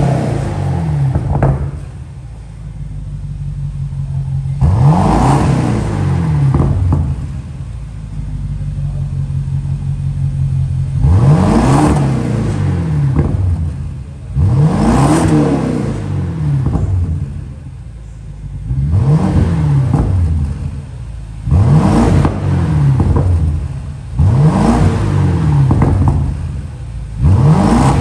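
BMW X6 M50, fitted with a race downpipe and straight-piped exhaust, revved repeatedly while standing still: about seven quick throttle blips, each rising sharply and falling back, with the engine running steadily between them.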